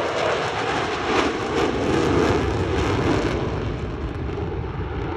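Jet roar of four Blue Angels F/A-18 jets passing in Diamond formation, fading steadily after about three seconds as they fly away.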